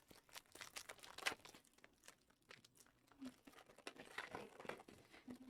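Faint crinkling and rustling of card packaging being handled, in scattered small crackles.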